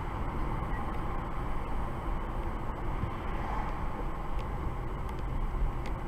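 Steady road and engine noise of a car driving slowly along a city street, heard from inside the cabin.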